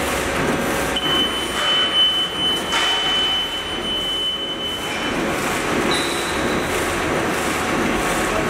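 A high-speed heat-sealing and cutting bag-making machine running, a steady rhythmic mechanical clatter from its sealing and cross-cutting stations and outfeed conveyor. A thin high whine comes in about a second in and stops about four seconds later.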